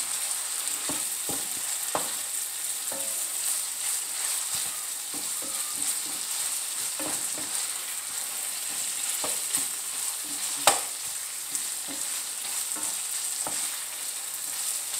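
Ground sausage and diced potatoes sizzling in a frying pan as a wooden spoon stirs and scrapes through them, with scattered knocks of the spoon against the pan; the loudest knock comes a little past the middle.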